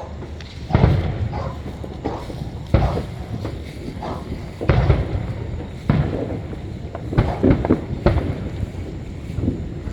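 Fireworks going off: a string of about six sudden booms at uneven intervals, each with deep low-end energy that trails off before the next.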